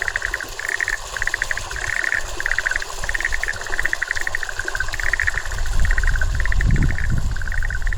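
A chorus of animal calls: short trills of rapid pulses, repeated one after another with barely a gap. A low rumble grows beneath them in the second half.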